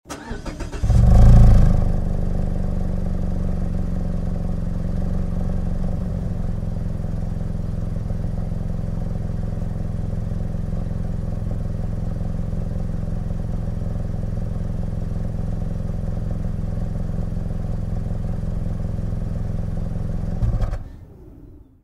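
Mazda CX-5 engine heard from behind the car at the exhaust: the starter cranks briefly, the engine catches with a loud rev flare about a second in, then settles to a steady idle. Near the end it is switched off and the sound dies away.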